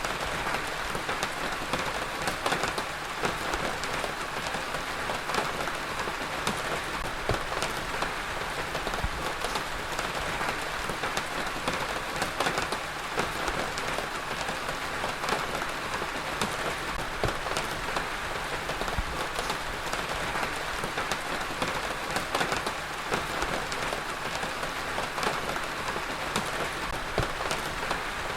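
Heavy rain falling steadily on a hard surface, a dense hiss of many individual drops spattering.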